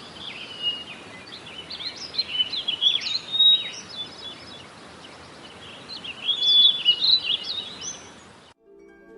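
Recorded chorus of songbirds chirping and warbling over a steady background hiss, cutting off abruptly near the end, where soft plucked-string music begins.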